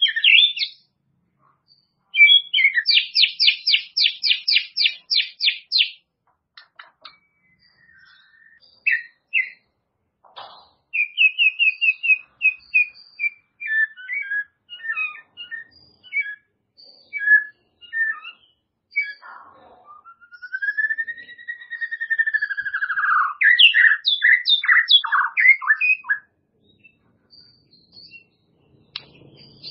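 White-rumped shama (murai batu) singing a loud, varied song in bursts. A run of quick repeated notes comes early, then trills and chattering phrases, and a long rising-and-falling whistle about two-thirds through.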